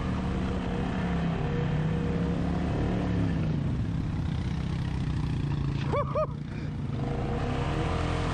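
ATV engine running steadily as the quad is ridden along a muddy trail. About six seconds in come two quick squeaky chirps, and the engine sound briefly drops as the throttle eases.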